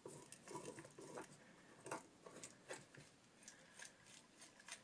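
Faint, irregular small clicks as a ball nut is turned off its ball-retaining transfer tube onto a ball screw.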